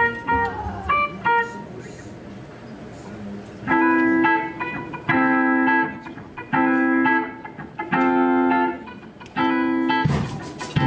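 Guitar music: a few short plucked notes, a quieter stretch, then a chord held about a second at a time, repeated five times with short gaps.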